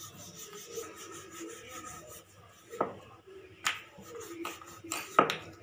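Rolling pin rolling out paratha dough on a stone counter: a soft, steady rubbing, broken by a few sharp knocks of the pin, the loudest a little before the end.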